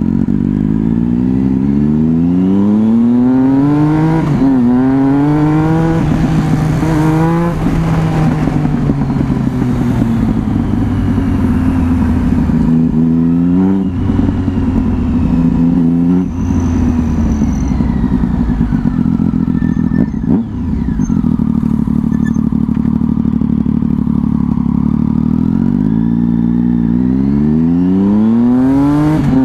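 Triumph 675 inline-three engine with an aftermarket exhaust, accelerating hard through the gears: revs rise and drop at each quick upshift several times in the first few seconds. It then settles to a steadier cruise with brief throttle lifts, and revs up again near the end.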